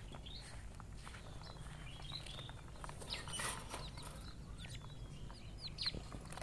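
Japanese quail chicks peeping: short, high-pitched chirps, scattered and bunching up about halfway through and again near the end, as the chicks are being caught by hand.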